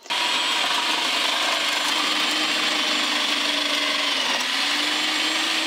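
Electric food processor running with a shredding disc, grating white cabbage and carrot pushed down the feed tube: a steady motor whine under the rasp of the vegetables being shredded. It switches on abruptly and cuts off abruptly.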